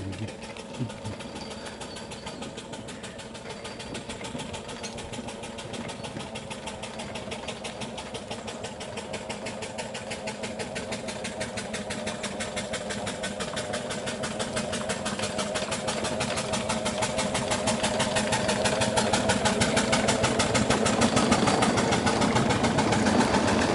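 4-inch scale Fowler live-steam traction engine running along the road, drawing near and passing, with a rapid, even beat that grows steadily louder as it approaches.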